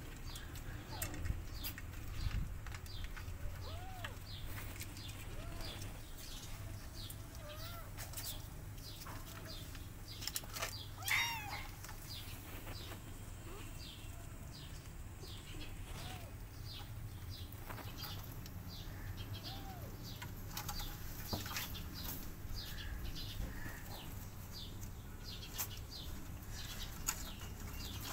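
Small birds chirping over and over in the background above a steady low hum, with a kitten mewing once, loudest about eleven seconds in, and a few softer short calls at intervals.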